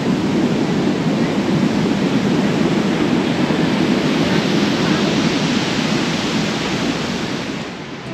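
Steady rushing noise of wind and sea surf, fading a little near the end.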